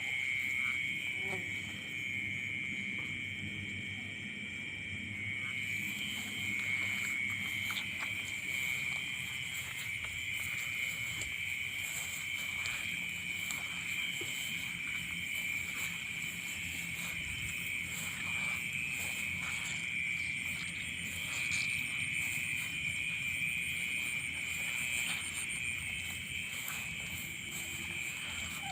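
Steady night chorus of insects in a rice field: a continuous high trilling that never breaks, with faint scattered clicks.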